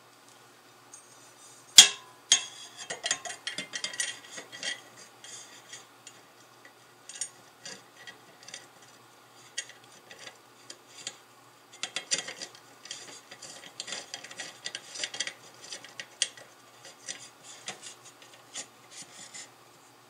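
Hardware being handled while the mining rig is assembled: small hard parts clinking and rattling in irregular clusters, with one sharp knock about two seconds in.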